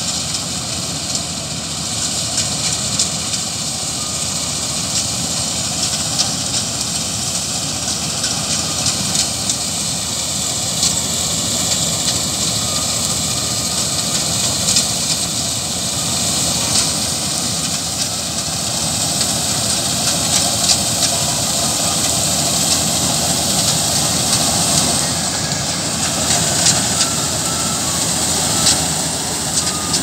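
Combine harvester running steadily while cutting and threshing standing dry mustard, its engine and threshing works a continuous loud hum. Frequent sharp crackles sound over it, and it grows a little louder as the machine comes nearer.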